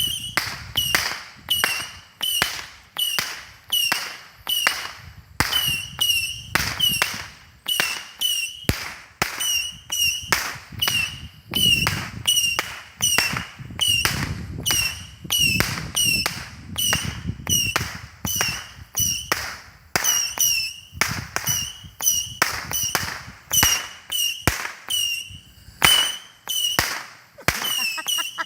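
A 100-shot consumer firework cake firing a long, even string of small shots, each a sharp crack, about two a second.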